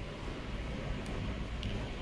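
Steady low background hum, with two faint light clicks from handling a small metal digital lock.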